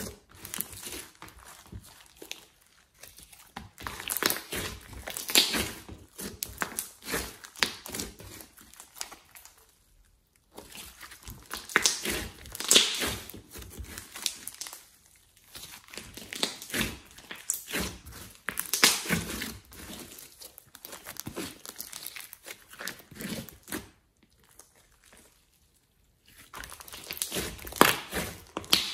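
Hands kneading, squeezing and pressing out a large lump of glossy slime mixed with clay: sticky clicking and crackling that comes in bursts, with short pauses between handfuls.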